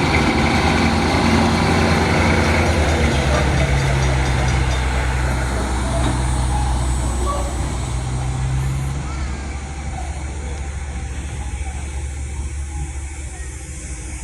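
Diesel locomotive engine running with a steady low drone, fading gradually over the last few seconds.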